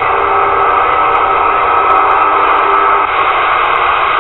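Galaxy 959 radio's speaker hissing with static from an open, quiet band, with no station coming through. A few faint steady tones sit under the hiss and fade out about three seconds in.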